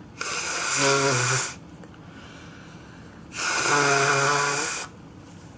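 Two loud, voiced sneezes about three seconds apart, each a drawn-out burst lasting over a second.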